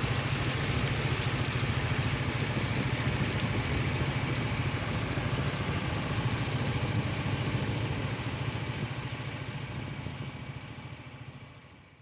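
A small boat's engine running steadily, with a high hiss over it for the first few seconds. The sound fades away near the end.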